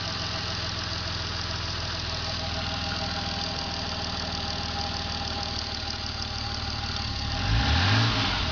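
Toyota 2JZ-GTE twin-turbo straight-six idling with a pulsating chirp, which the owner places at the valve cover near the PCV valve and cannot identify. About seven seconds in the engine is briefly revved and drops back to idle.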